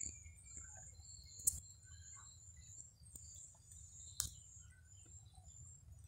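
Faint natural ambience: scattered soft bird chirps over a steady high insect buzz, with two sharp clicks, about one and a half and four seconds in.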